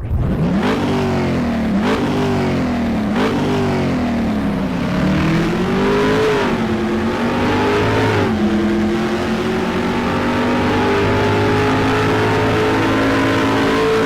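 A car engine revving: three quick blips, then slower rises and falls, settling to a steady high speed for the second half.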